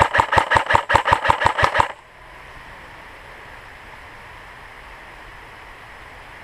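Airsoft electric gun (AEG) firing a full-auto burst: a rapid, even string of mechanical clacks, about seven a second, that stops about two seconds in, leaving only steady outdoor hiss.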